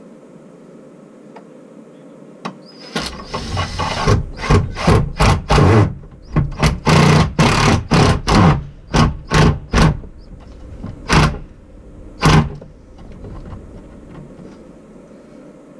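Cordless drill-driver driving screws to fix an electrical adaptable box to wooden wall cladding, run in many short trigger bursts from about three seconds in until about twelve seconds in.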